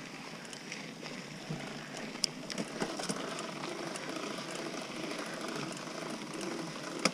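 Mountain bike rolling over a dirt-and-gravel trail: steady tyre and drivetrain noise with a few sharp clicks and rattles, a cluster of them two to three seconds in and a louder one near the end.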